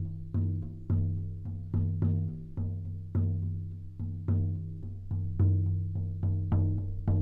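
Large deer-hide frame drum on a red cedar frame (a shaman drum) beaten in a steady rhythm of nearly two strokes a second, each stroke a deep tone that rings on and fades before the next.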